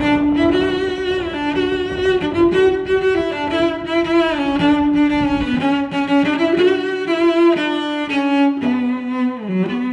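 Background music of bowed strings playing a slow melody with long held notes, over a low rumble that stops suddenly about halfway through.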